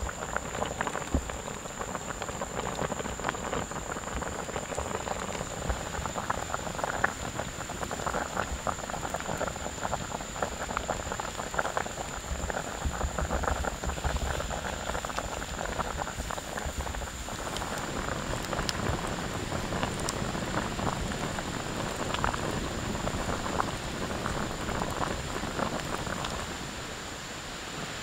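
Pork and chili simmering in sauce in a wok over a wood fire: a dense, steady bubbling and sizzling crackle. It drops to a softer, even hiss near the end.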